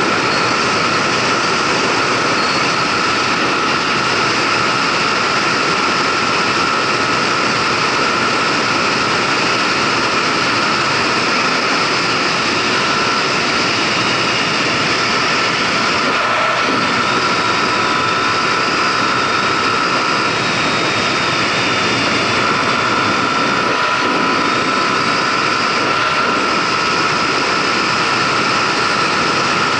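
Kymco Agility City 125 scooter's single-cylinder four-stroke engine running steadily at a cruise of about 70 to 80 km/h, with heavy wind rush on the action camera's microphone over a steady whine.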